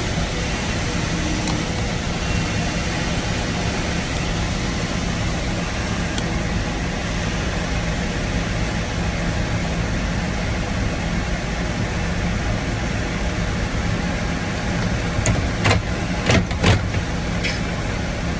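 Tractor engine running steadily, powering the grain cart as it unloads corn. Several sharp clicks come about three seconds before the end.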